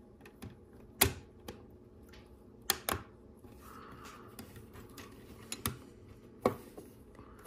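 LEGO Technic plastic pieces clicking and knocking as they are handled and pressed into the model, with a handful of sharp, irregular clicks and light rustling of parts between them.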